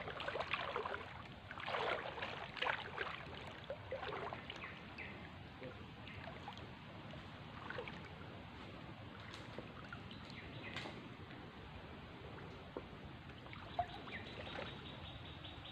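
Faint swishing and splashing of shallow swamp water, irregular for the first five seconds or so, then settling to a faint steady hiss.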